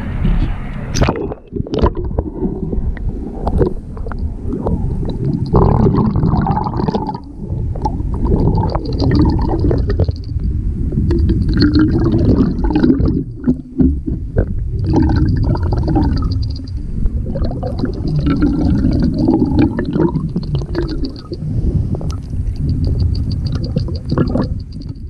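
Water sloshing and gurgling loudly and unevenly, with scattered clicks and knocks.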